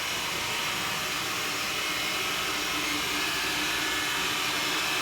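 Xiaomi Mi robot vacuum running steadily, a continuous whirring hiss from its suction motor and brushes, with a faint low hum joining about halfway through.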